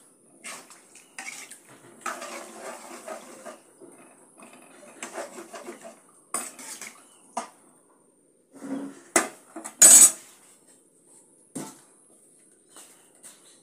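Metal spoon scraping and clinking against a metal pan of chicken curry as it is stirred, in irregular strokes, with the loudest clatter about nine to ten seconds in.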